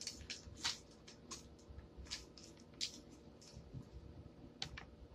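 Faint, irregular crinkles and light clicks of hands handling a plastic deli-meat package while taking out slices.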